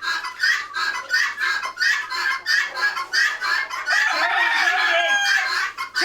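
A flock of guinea fowl giving their rapid, harsh alarm call over and over, about four calls a second, the sign that they take a person in the barn for a threat.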